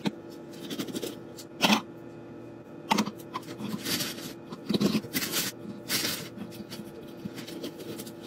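A plastic treat bag crinkling and small dry dog treats tumbling into a glass jar, in several short, uneven bouts of rustling and clatter, over a steady low hum.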